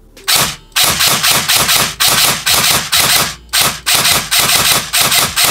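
Airsoft electric rifle with an Ares EFCS electronic gearbox firing in rapid automatic bursts: a single shot, then several runs of fast, evenly spaced shots separated by short pauses, the gearbox cycling on a LiPo battery.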